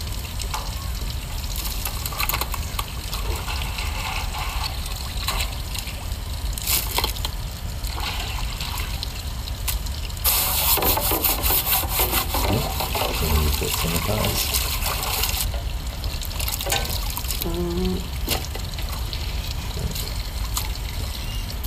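Water splashing and pouring as crabs are washed in a basin, with a louder stretch of pouring and rinsing about ten seconds in.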